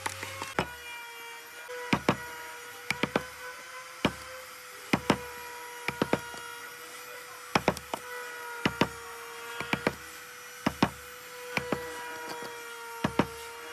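Hand carving of wood: sharp knocks and cuts of a carving tool biting into the wood, singly or in quick groups of two or three, about once a second, over a steady hum.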